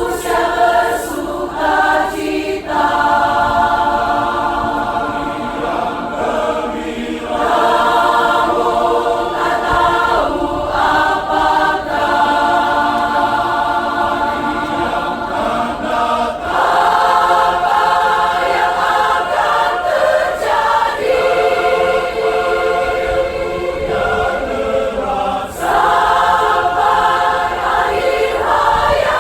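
Church choir singing a hymn arrangement in several voice parts: held chords sung in phrases, with short breaks between them.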